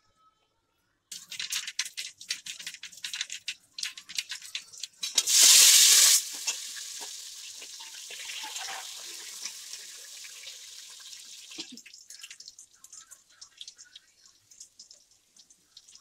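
Mustard seeds crackling and popping in hot oil, starting about a second in. About five seconds in comes a loud, short burst of sizzling as chopped onion, green chillies and curry leaves go into the oil, then a steady sizzle that slowly fades.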